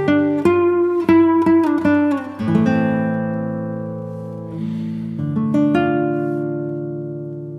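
Background music on acoustic guitar: quick plucked notes, then two chords left to ring out and fade.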